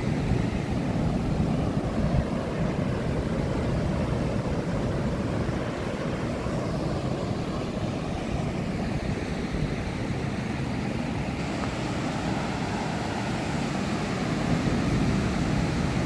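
Steady roar of heavy surf breaking on a sandy beach, with wind rumbling on the microphone.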